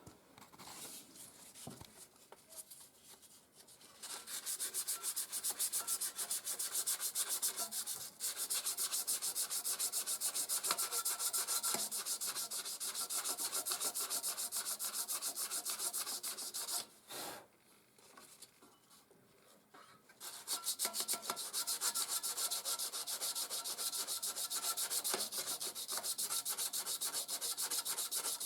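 Fine sandpaper scrubbed in quick back-and-forth strokes over the rusted flywheel magnets of a small cultivator engine. The sanding comes in two long spells with a pause of a few seconds between them. The rust is being cleaned off because it gives a poor spark and hard starting.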